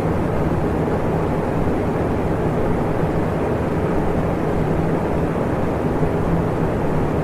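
Electric fan running steadily: an even rush of air with a low hum underneath.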